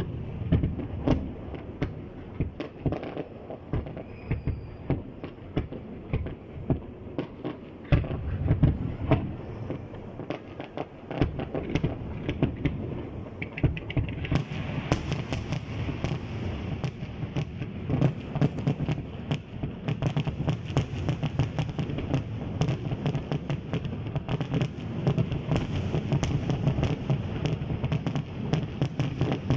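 Fireworks display: aerial shells bursting in a rapid string of booms and pops, which turns about halfway through into a dense, almost continuous crackle.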